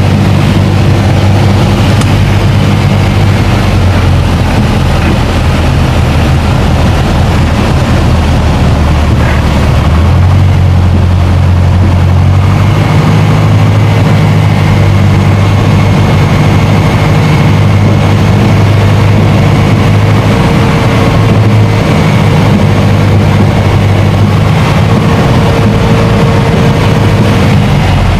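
Piper Warrior's four-cylinder Lycoming engine and propeller droning loudly inside the cabin, with airflow noise, on approach to land. The engine note shifts in steps a few times as power is adjusted.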